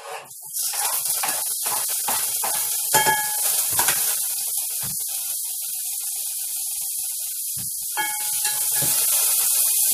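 Tofu strips going into hot oil in a pan and sizzling, a steady hiss that starts about half a second in, with a utensil clinking and scraping against the pan a few times.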